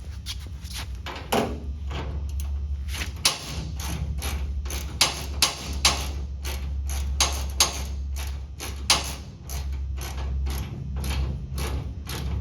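Ratchet clicking in a steady run of quick strokes, about two to three clicks a second with a few louder ones, as the fuel cell's mounting hardware is tightened. A low steady hum runs underneath.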